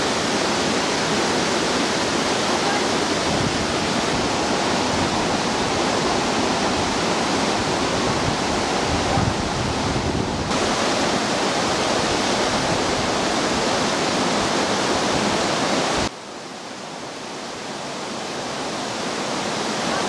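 Waterfall, a steady rush of falling water. About four-fifths of the way through it drops sharply in level, then slowly grows louder again.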